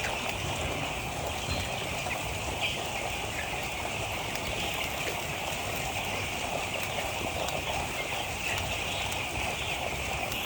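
A flock of broiler chicks peeping in a dense, steady chorus.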